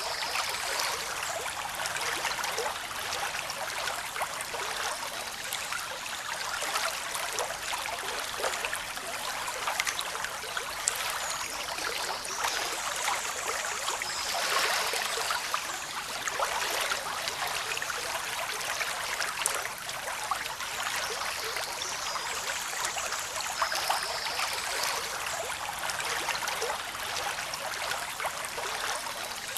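Water flowing steadily, a continuous rushing and trickling with no rise and fall of waves.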